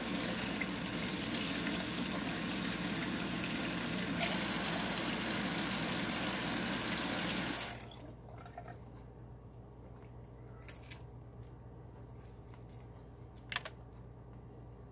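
Kitchen tap running into a sink, shut off abruptly about halfway through. After that come a few faint clicks of hard-boiled eggshell being peeled.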